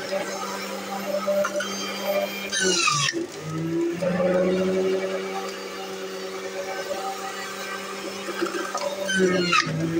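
Philips centrifugal juicer motor running steadily while juicing carrots. Its hum dips and wavers twice, about three seconds in and near the end, as carrots are pushed through the chute.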